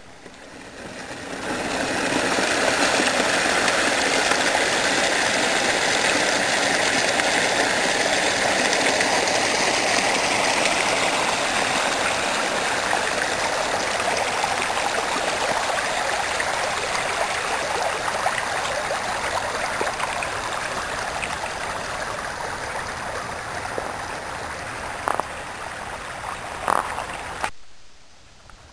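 Rushing water of stream rapids, a steady hiss that swells in over the first couple of seconds and cuts off suddenly near the end.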